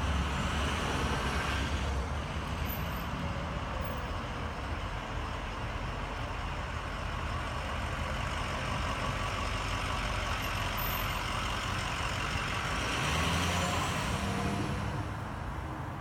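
Steady rumble of motor-vehicle noise, growing louder about thirteen seconds in.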